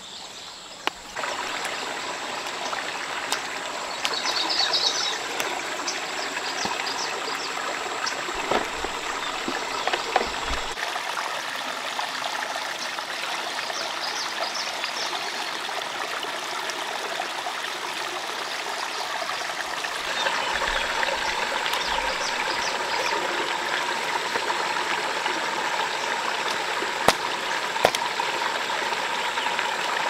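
Steady rush of a flowing stream, with a few short high chirps about four seconds in and a thin steady high tone that stops about ten seconds in.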